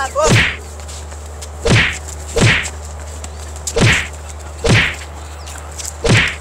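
Six punch sound effects in a staged fight, each a quick swoosh that falls in pitch into a hit, spaced roughly a second apart, over a steady low hum.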